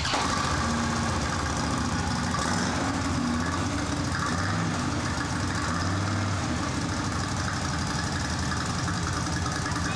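Large touring motorcycle's engine idling steadily.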